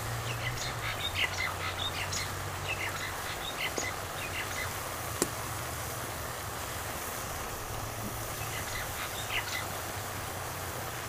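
Birds calling in a run of short, quick notes during the first half and again briefly near the end, over a steady low hum. A single sharp click about five seconds in.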